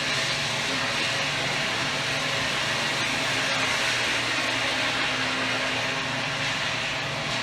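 Amplified noise music played live: a steady, unbroken wall of hiss with a low drone underneath.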